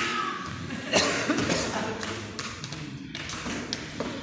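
A few scattered taps and knocks, the sharpest about a second in, with the sound growing quieter throughout.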